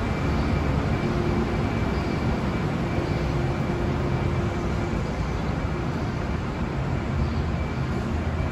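Steady vehicle and traffic noise: engines running, with a low hum that fades out about five seconds in.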